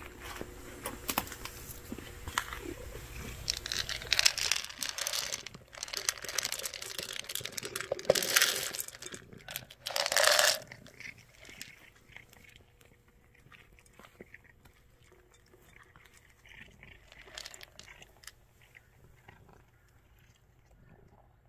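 A cat crunching dry kibble from a bowl. In the first half there are loud rustling, rattling bursts, the loudest about four, eight and ten seconds in. After about eleven seconds only faint crunching is left.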